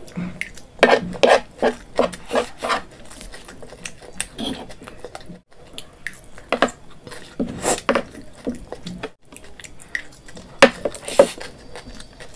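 Utensils clinking and scraping against dishes while eating noodles: irregular clusters of short, sharp knocks with pauses between, the loudest a pair near the end.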